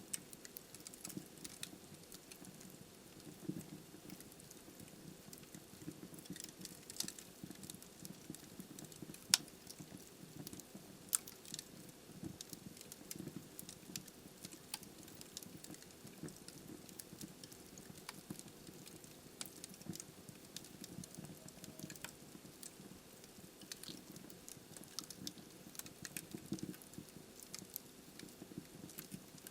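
Wood fire burning in a fireplace: a steady low flicker of flames with frequent small crackles and sharp pops from the logs, two louder pops about nine and eleven seconds in.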